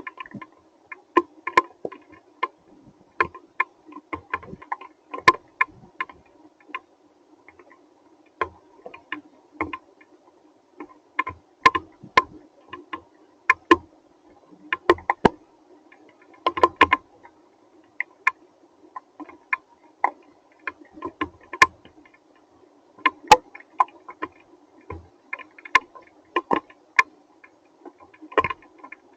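Scattered rain and hail striking a hard surface, heard as irregular sharp ticks a few times a second over a faint steady hum.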